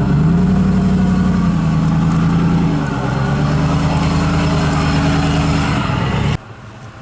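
A motor vehicle's engine running hard at steady revs, its pitch stepping down about three seconds in. The sound cuts off suddenly near the end.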